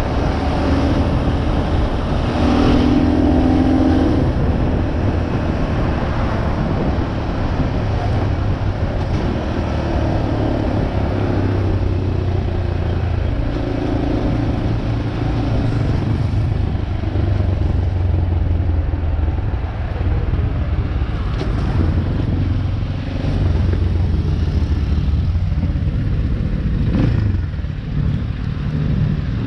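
Motorcycle engine running while being ridden, recorded on board, its low drone shifting in pitch several times.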